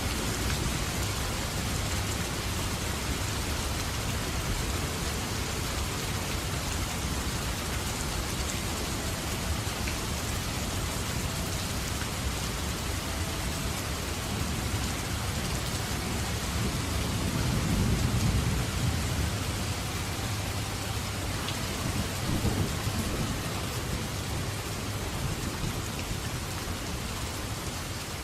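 Steady heavy rain falling as a dense hiss, with low rumbles of thunder swelling up about two-thirds of the way through and again shortly after.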